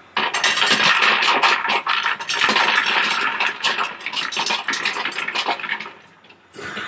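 Rotary disc feeder running, its small black wheel-shaped parts tumbling on the spinning disc and clattering continuously against each other and the stainless steel bowl wall. The clatter thins out briefly about six seconds in, then picks up again.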